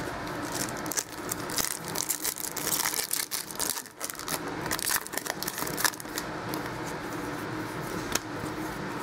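Foil trading-card pack wrapper being torn open and crinkled by hand: a run of sharp crackles and rips for the first several seconds, settling into lighter rustling near the end.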